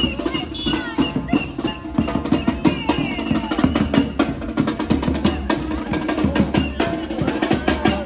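Street drum band playing fast snare and bass drums, with crowd voices over the drumming.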